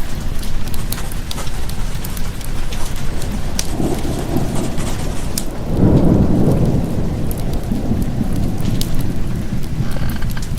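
Steady rain with a low roll of thunder that swells about four seconds in and peaks around six seconds, with the sharp pops of a crackling wood fire scattered throughout.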